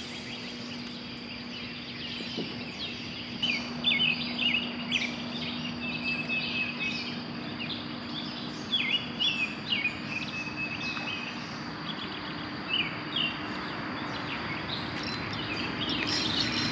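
Songbirds singing in the early-morning dawn chorus: many short chirps and quick whistled phrases, over a steady low hum.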